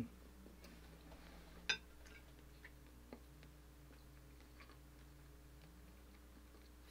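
Metal spoon and fork clinking against a plate: one sharp clink a little under two seconds in and a few light taps, with little else heard.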